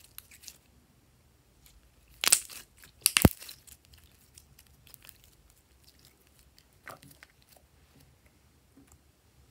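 Glossy slime being squeezed and pulled apart by hand, with soft sticky crackles and pops. There are two loud bursts of crackling a little after two and three seconds in, the second ending in one sharp snap, and a smaller crackle near the end.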